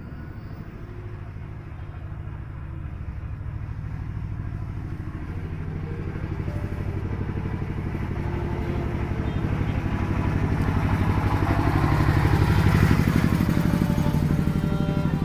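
A motor vehicle's engine running as it approaches, growing steadily louder and loudest about 13 seconds in, then easing slightly.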